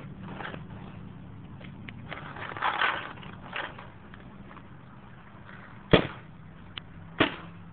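Paintball marker firing: a few sharp pops, the two loudest about six and seven seconds in, with a softer burst of hiss and pop near three seconds.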